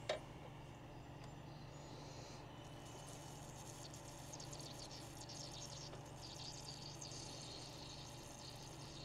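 Faint spattering of a stream of soapy water from a pump sprayer hitting the fins of an AC condenser, strongest from a couple of seconds in until near the end, over a low steady hum. A short click comes right at the start.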